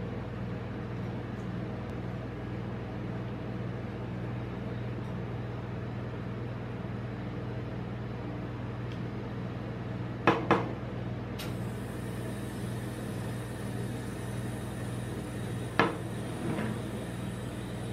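Steady low machine hum from the ice-cream roll cold plate, with a few sharp knocks of a glass soda bottle on the steel pan: two close together about ten seconds in, and another, followed by a lighter one, near the end.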